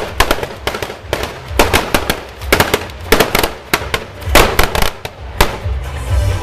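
Fireworks and firecrackers going off in quick irregular clusters of sharp bangs, with a pause of about half a second now and then. Music with a heavy bass beat plays underneath.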